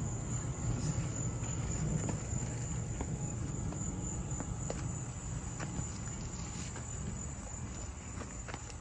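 Steady high-pitched insect trill over a low rumble, with a few faint scattered clicks.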